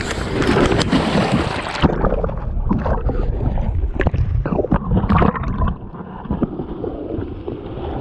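Stream water rushing and gurgling around a camera dunked in the water: about two seconds in the sound turns dull and muffled, and a run of knocks and splashes follows before it settles into a steadier, quieter flow.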